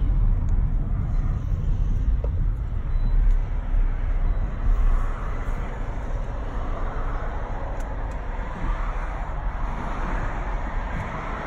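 Low, steady rumble of a car's engine and tyres on the road, heard from inside the moving car's cabin.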